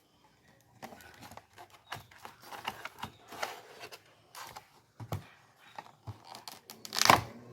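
Packaging being torn open and crinkled by hand, in irregular rustles and clicks, with the loudest tear near the end.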